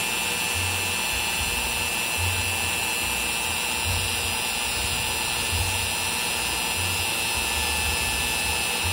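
Compact palm router in a hobby CNC machine running at speed while its small bit cuts a shallow, slow pass into a wood blank: a steady high whine over the even rush of the cut, with a low hum that swells and fades.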